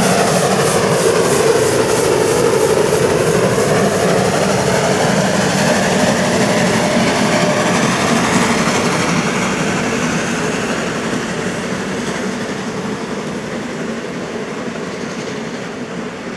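Narrow-gauge steam locomotive 99 6101 passing close by under steam, its sound dropping in pitch as it goes past. Its coaches then roll by, and the sound fades slowly over the last several seconds as the train moves away.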